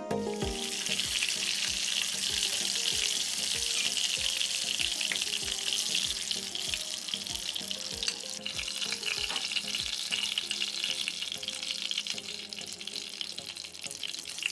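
Food frying in a pan, a steady crackling sizzle that eases slightly about halfway through, over background music with a regular beat.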